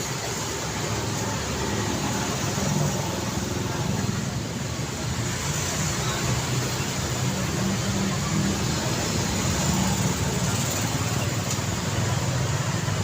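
City street traffic: a steady wash of passing cars, with engine rumble and tyre noise that swells and eases as vehicles go by.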